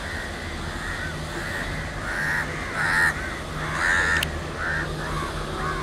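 Crows cawing again and again, several short calls a second, loudest in the middle, over a low steady rumble from the approaching WDM-3A diesel locomotive. A single sharp click about four seconds in.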